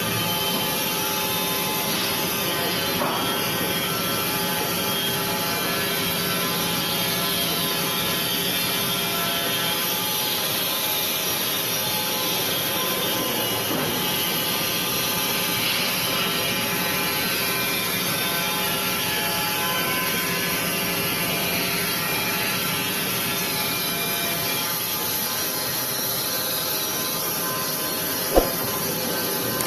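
Wood-Mizer industrial band sawmill running steadily with a whine, its blade sawing through a log. A single sharp knock comes near the end.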